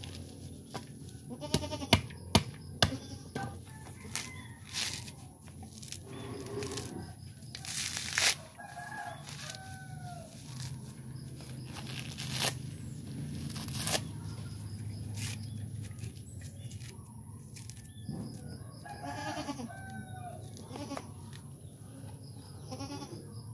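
Coconut being husked by hand with a metal prying tool: sharp knocks of the tool on the nut, followed by loud rips of fibrous husk tearing away. A farm animal calls twice in the background.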